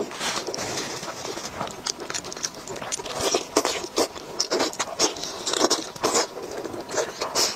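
Close-miked eating sounds: wet chewing and lip-smacking on saucy meat on the bone, coming as irregular short smacks.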